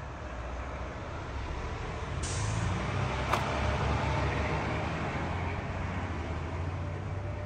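A Mitsubishi Xpander's engine runs with a steady low rumble. About two seconds in a hiss starts suddenly and fades, and a second later there is a single sharp knock.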